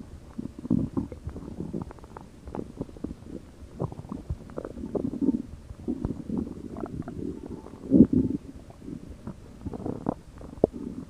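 Stomach growling and gurgling: irregular low rumbles with many small pops and bubbles, the loudest swell about eight seconds in.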